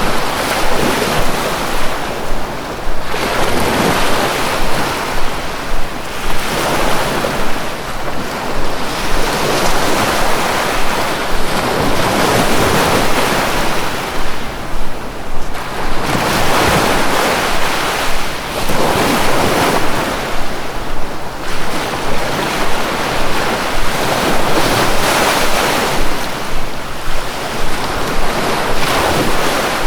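Sea waves breaking and washing on a shore: a steady rush of surf that swells and eases every few seconds.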